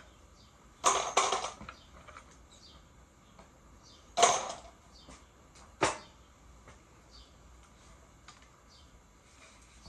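Hand tools and small gun parts knocked and set down on a wooden workbench while an old pellet gun is taken apart: a quick double clatter about a second in, another clatter about four seconds in, and a single sharp knock near six seconds.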